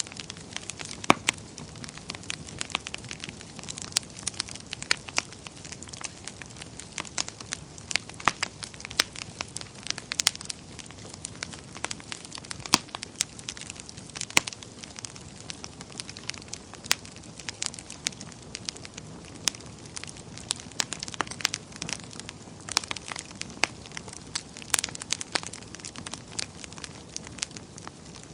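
Wood fire burning in a fireplace, crackling and popping with many irregular sharp snaps over a soft steady hiss.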